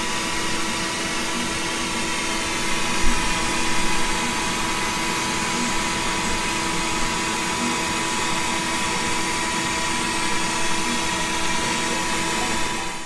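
CNC router spindle, a PwnCNC 2.2 kW, running with a V-bit as it carves a V-carve toolpath into PVC sheet. It gives a steady whine over a broad hiss, swelling slightly a few seconds in.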